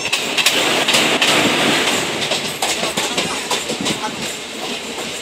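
Passenger express train passing close by behind an electric locomotive: a loud rush of wheels and air with the clatter of wheels over rail joints. It is loudest in the first two seconds as the locomotive goes by, then eases as the coaches roll past.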